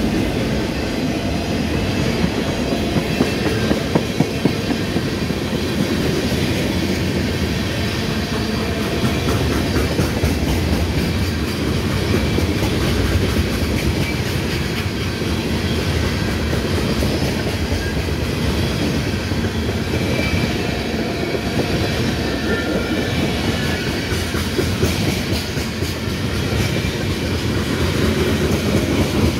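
Freight cars of a CSX train rolling past at slow speed: a steady rumble of steel wheels on rail with a continuous clickety-clack of wheels over the rail joints.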